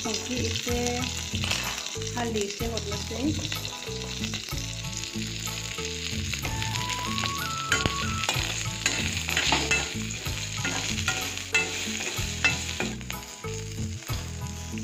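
Pieces of black arum stem frying in hot oil in a metal wok, sizzling steadily, with a slotted metal spatula scraping and turning them against the pan.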